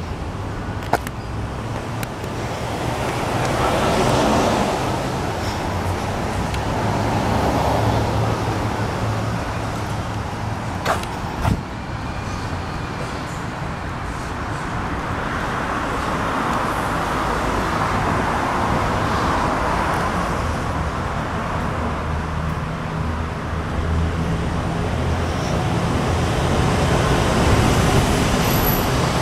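Street traffic: a steady engine rumble with several vehicles passing one after another, each swelling and fading over a few seconds. A couple of short, sharp clicks come through about a second in and again about eleven seconds in.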